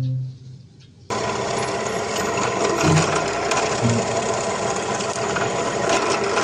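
About a second in, a small electric motor switches on suddenly and runs steadily with a buzzing, clicking rattle, like a battery-powered toy power tool such as a drill or saw. Before it starts, a plucked note of background music fades out.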